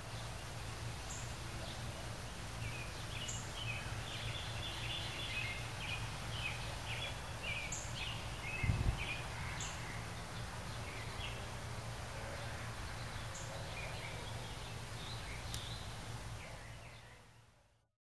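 Birds chirping over a steady low hum, with a single thump about halfway through. The sound fades in at the start and fades out near the end.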